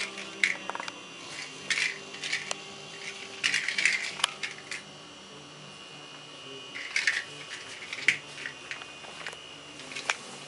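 A kitten playing with a toy mouse on a vinyl floor: irregular light clicks, scuffs and skittering in short bursts every second or two, with quieter gaps between.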